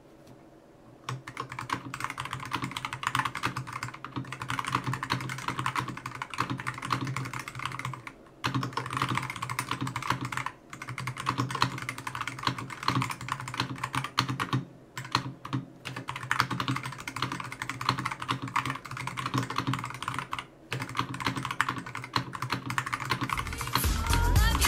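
Typing test on an Akko 5075S gasket-mount mechanical keyboard with Akko CS Starfish switches and PBT double-shot keycaps, all stock with unlubed switches and stock stabilizers: rapid, steady keystroke clacking with a few brief pauses. Music comes in near the end.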